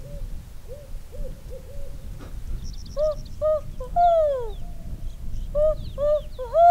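Owl hooting. In the first two seconds, faint hoots answer from across a lake. About three seconds in, a loud, close owl call imitated by a person gives a few short hoots and then a long falling hoot, and the same call comes again near the end.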